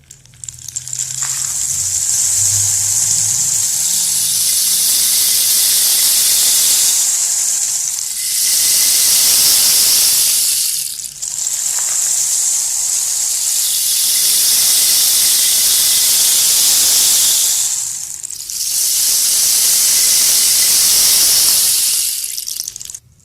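Water rushing steadily in a loud hiss, in four stretches that change in sound with brief dips about 8, 11 and 18 seconds in.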